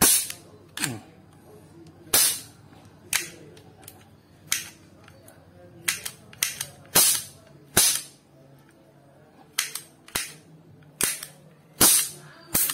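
Metal toy cap revolver firing paper roll caps: about fifteen sharp cap pops at an irregular pace, some louder than others. The pops are fairly loud, though the owner thinks the hammer strikes too weakly to set the caps off at full force.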